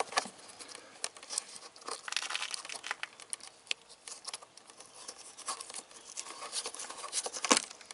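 Plastic fairing panel of a KTM Duke 390 being pried and pulled loose with a screwdriver. It makes a scattered run of small clicks, crackles and creaks, with one sharper click near the end.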